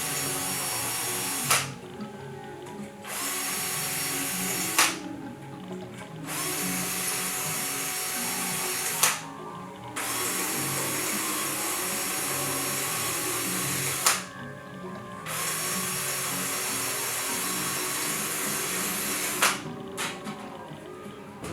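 Power drill running in runs of several seconds with short pauses between, over background music.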